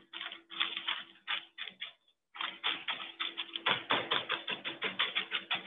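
Rolling pin pressed over cookie dough sandwiched in parchment paper, the paper crackling in quick rapid ticks, with a short break about two seconds in.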